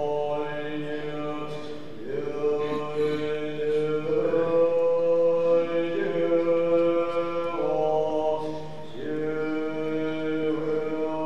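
Tibetan Buddhist monastic chanting: a male voice holds long drawn-out notes, stepping to a new pitch every couple of seconds, over a low steady drone.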